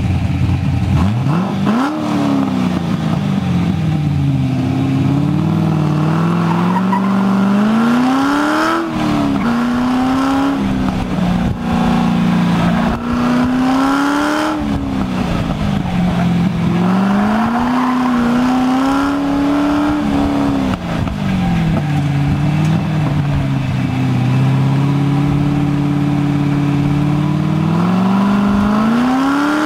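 GM LS1 V8 engine in a homebuilt kart, heard from on board, repeatedly revving up and falling back between about 3,000 and 4,500 rpm as the car accelerates and brakes through an autocross course. There are several sharp climbs in pitch, each followed by a longer easing-off.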